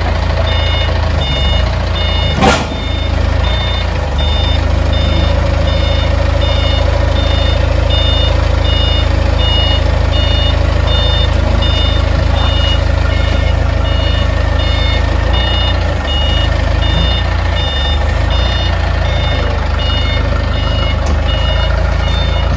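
Heavy machine's reversing alarm beeping evenly, about one and a half beeps a second, over its diesel engine running steadily. A single sharp crack about two and a half seconds in.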